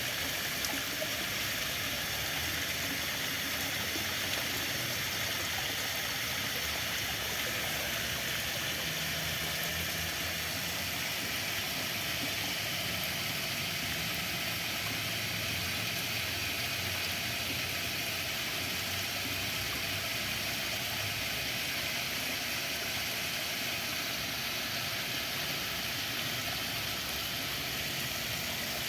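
Steady rush of flowing water, an even hiss that never lets up.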